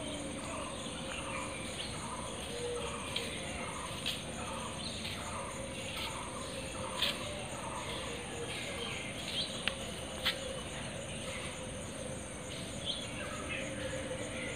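Birds chirping over a steady, high insect drone. One call repeats about twice a second through the first half. A few sharp clicks stand out.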